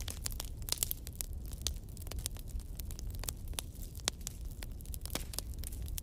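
Wood fire crackling in a fireplace: irregular pops and snaps, several a second, over a low steady rumble.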